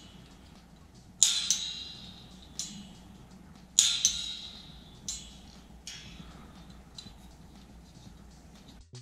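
Exposed steel springs of an old scissor-arm microphone boom stand twanging and buzzing as the arm is flexed. Two loud metallic twangs, about a second in and near four seconds, each ring out for a second or so, with fainter jangles after. The springs resonate freely.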